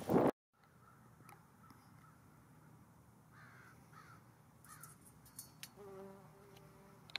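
Faint bumblebee buzzing, with a steadier, louder buzz near the end as the bee lifts off the flower. A few short falling bird chirps come in the middle.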